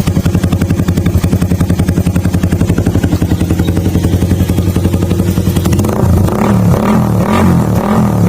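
Motorcycle exhaust through an old King Drag aftermarket muffler: the engine idles with a steady, rapid pulse, then about six seconds in the throttle is blipped in several quick revs, each rising and falling.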